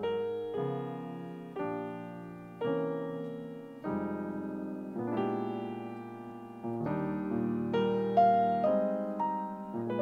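Grand piano played solo in a slow jazz ballad style: a new chord is struck every second or so and left to ring and fade.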